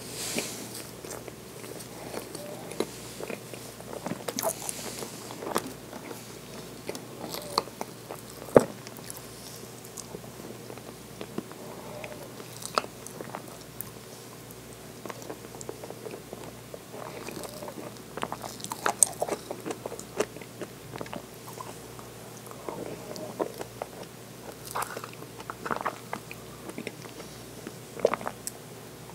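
Close-miked eating sounds of soft fruit pudding: wet mouth and chewing noises with scattered sharp clicks and taps. The loudest click comes about eight and a half seconds in. The clicks are from the wooden spoon against the plastic pudding cup and from the mouth.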